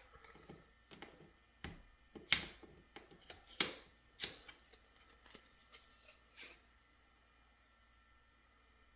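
Irregular sharp clicks and clacks of small hard 3D-printed plastic parts being handled, knocked together and set down, for about six seconds, then only a faint steady hum.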